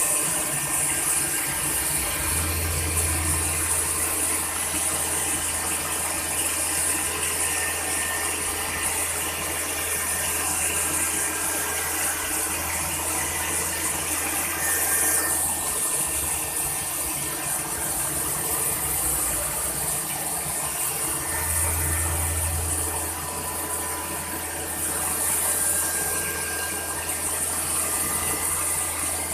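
CNC machine running: a steady mechanical noise with a constant hiss and a few steady tones. A low hum under it drops out about halfway through and comes back a few seconds later.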